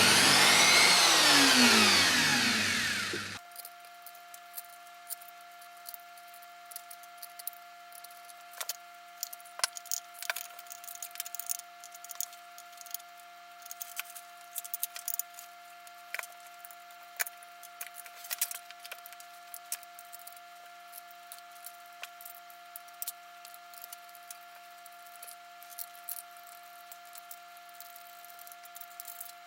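Woodworking router motor spinning down after switch-off, its pitch falling over about three seconds, then cutting off abruptly. After that come only scattered light taps and clicks over a faint steady whine.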